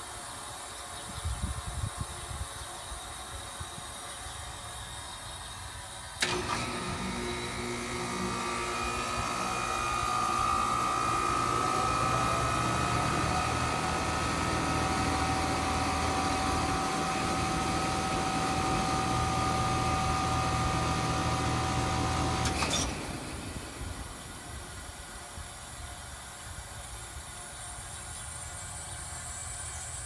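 Heat pump outdoor unit short cycling: about six seconds in it starts with a click and runs with a steady hum and a faint steady whine, then shuts off with another click some sixteen seconds later. The rapid on-off cycling is caused by a faulty controller board.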